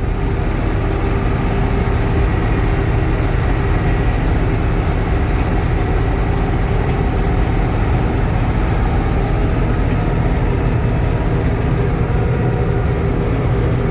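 John Deere 6620 combine's diesel engine and threshing machinery running steadily while harvesting soybeans, a constant low drone.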